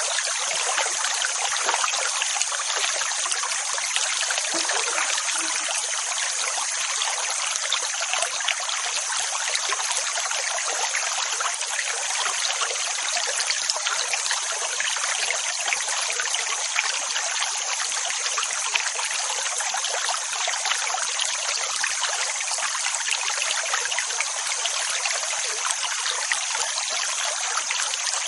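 Steady rushing water: an even, hissing wash with almost no low rumble, and no rise and fall of separate waves.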